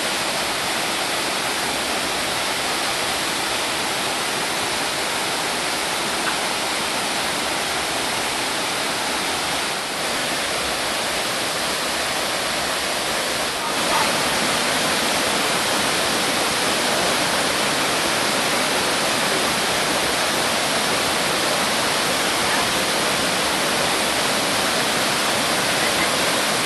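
Korbu waterfall: a steady rush of falling water, getting a little louder about halfway through.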